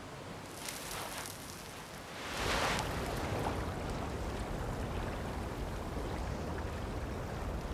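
Soft swishes of sand being flung by a nesting green turtle's flippers. From about two and a half seconds in, a steady rush of surf and wind takes over.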